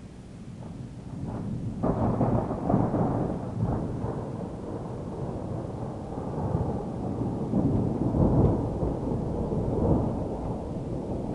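Thunder: a clap breaks about two seconds in, then rolls on as a long low rumble that swells again several times.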